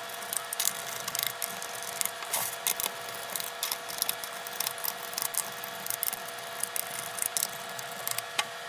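Small Phillips screwdriver backing screws out of a plastic laptop bottom case: many irregular clicks and scrapes of the bit in the screw heads over a steady hum. The sound cuts off suddenly at the end.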